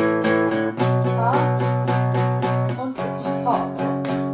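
Acoustic guitar strumming power chords in a steady, even rhythm of about four strums a second. The chord changes twice, moving through the A, B and F-sharp power-chord pattern.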